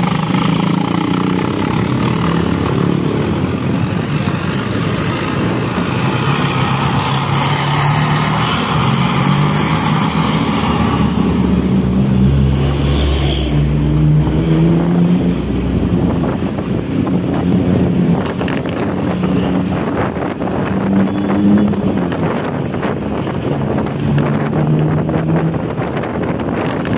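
Intercity bus's engine and 'snoring' (ngorok) exhaust running hard, the note rising and falling several times over steady road noise.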